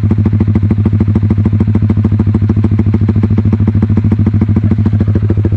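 Honda Supra GTR 150's single-cylinder engine idling steadily through a VMAX GP-type full exhaust with its silencer removed. The open pipe gives a loud, crisp exhaust note, an even beat of about a dozen pulses a second.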